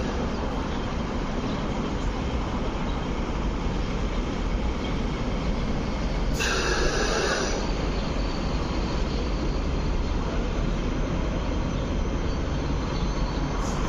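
Hong Kong MTR Light Rail Phase 5 light rail vehicle (CRRC-built) running into a platform and coming to a stop, with a steady low rumble from its running gear. A short, louder burst of noise stands out about six seconds in.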